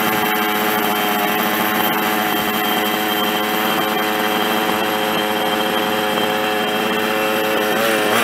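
Small two-stroke petrol engine of a large-scale RC car idling steadily with an even buzz. Near the end a rising and falling whine cuts in.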